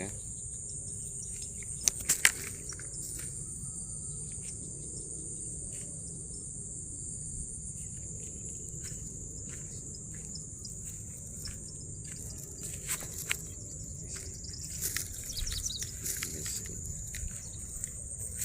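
Steady high-pitched drone of an insect chorus. A few sharp clicks come about two seconds in, and scattered light clicks and knocks follow in the last third.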